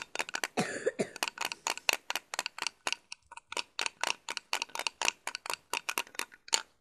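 A rapid, uneven series of sharp clicks, about five a second, very close to the microphone.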